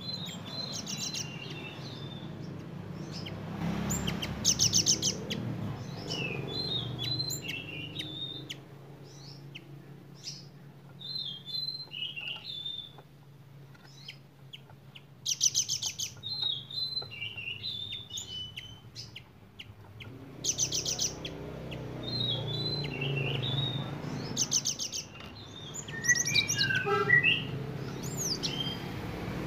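Caged cinereous tit singing a sharp song of quick chirps and twittering notes, broken several times by short, very high rapid trills. The song carries learned imitations (isian) of bar-winged prinia (ciblek) and velvet-fronted nuthatch (rambatan) calls.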